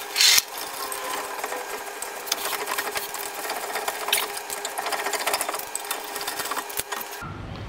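Power tool at a car's rear wheel lug nuts, running in a fast, continuous mechanical rattle that stops near the end.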